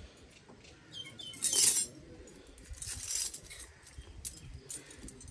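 A metal tether at a cow's neck jangling as it is handled, in two short rattles about a second and a half apart. The first is the louder, with a couple of faint high chirps just before it.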